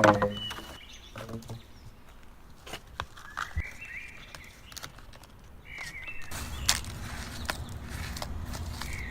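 Scattered sharp knocks and taps, with a bird chirping a few times. A steady low hum comes in about six seconds in.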